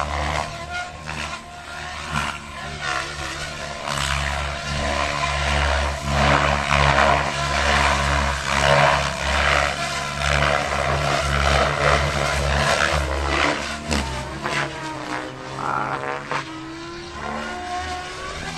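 Radio-controlled model helicopter flying aerobatics, its rotor and motor whine swelling and easing in pitch and loudness with the manoeuvres, loudest through the middle.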